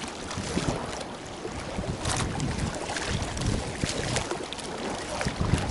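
Wind buffeting the microphone over a light wash of water, with a few faint ticks. The wind rumble grows louder near the end.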